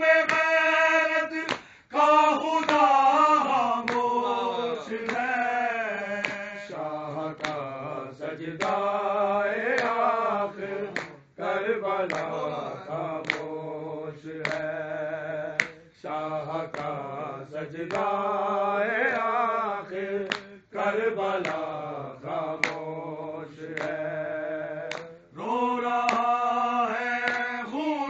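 Male voices reciting an Urdu noha without instruments, in long sung phrases broken by short breaths. Sharp slaps land about once a second, the beat of matam (chest-beating) kept by the mourners.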